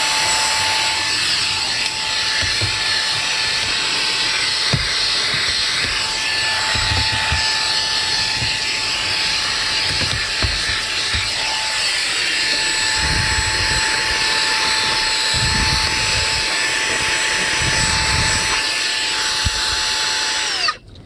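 Xiaomi Mijia SSXCQ01XY handheld cordless vacuum cleaner's 120 W brushless motor running, with a steady high-pitched whine over rushing air and a few dull knocks. Near the end it is switched off, and the whine falls in pitch as the motor spins down.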